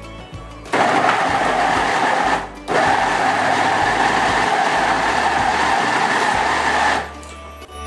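Kuer-Cool electric mini chopper's motor running in two runs, a short one starting about a second in, a brief stop, then a longer one of about four seconds, its blades chopping raw meat and vegetables into kebab mince.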